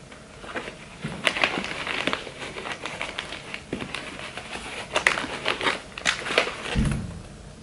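Suitcase being packed by hand: clear plastic pouches crinkling and rustling as a sneaker and other items are pushed into place, with many small handling clicks and a low thump near the end.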